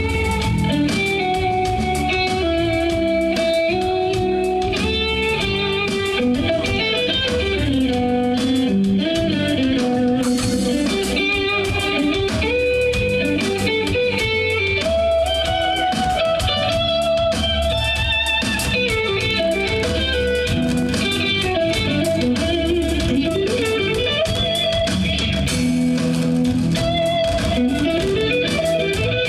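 Live instrumental band music: an electric guitar plays a gliding melodic line over bass guitar.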